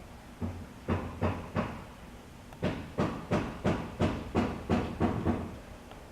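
A series of sharp knocks with a dull low thump in each. A few come spaced out, then a steady run of about three a second.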